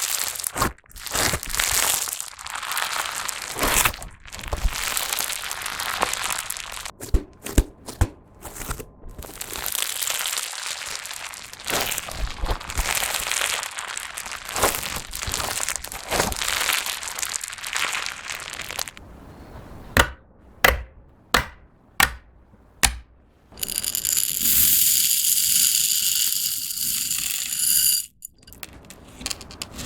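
Dried floam slime being squeezed and worked, a dense crunching crackle of hardened foam beads. About two-thirds of the way in this changes to a few sharp separate pops and clicks, then a steady rushing hiss for about four seconds as plastic pellets are poured into slime.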